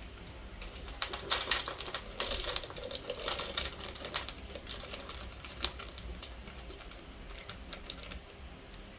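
Mixed nuts poured into a blender jar, a rapid clatter of many small clicks and rattles, thickest in the first half, thinning out to a few scattered clicks.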